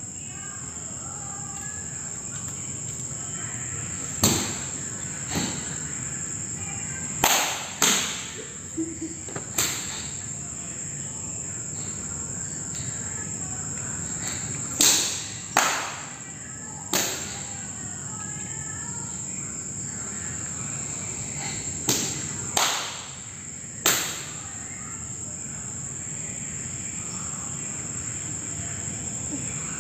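Karate kata performed barefoot: about a dozen sharp slaps and snaps from strikes, stamps and the uniform, in three clusters. A steady high whine runs underneath.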